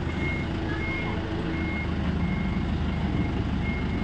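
Forklift reversing alarm beeping in a steady series, about one beep every 0.7 seconds, over the forklift's engine running steadily.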